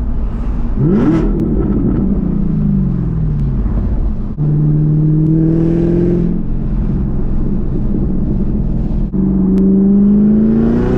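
Supercharged 6.2-litre LT4 V8 of a Chevrolet Camaro ZL1 through a Corsa NPP exhaust, heard from inside the cabin. A sharp rev about a second in falls away as the throttle comes off, then a steady drone rises slowly. After a brief dip near the end the pitch picks up higher and keeps climbing under acceleration.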